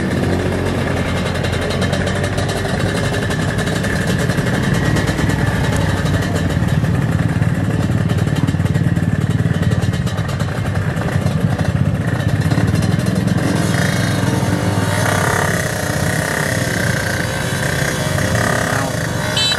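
Drag-racing motorcycle engine running loud and steady at high revs.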